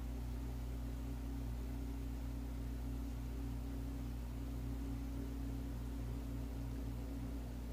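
Steady low hum with a faint hiss: background room tone with no distinct event.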